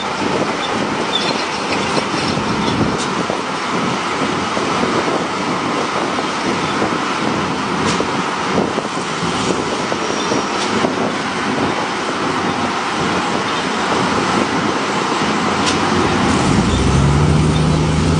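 Hyundai 25-ton dump truck working: a loud, steady rumbling clatter with many small knocks through it. Near the end a steady low engine note comes in and holds.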